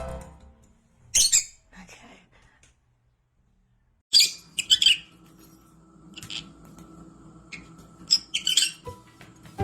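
Pet bird giving short, sharp high-pitched squawks and chirps in several clusters, with a gap of near silence in the middle.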